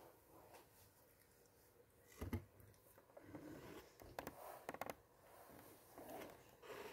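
Faint handling sounds of a textured noodle fidget toy being played with by hand: soft rustles and scrapes, a sharp click about two seconds in and a quick run of ticks a little past the middle.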